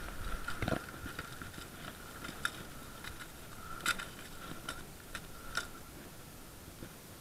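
Scattered light clicks and taps, irregular and a few seconds apart, over a faint steady high-pitched tone.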